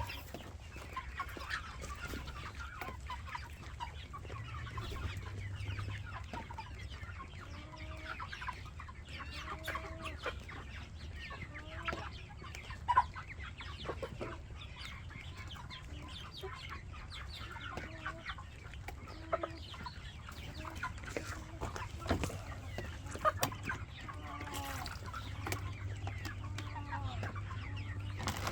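Chickens clucking, many short clucks throughout, over a low steady hum, with a few sharp clicks, the loudest about 13 seconds in.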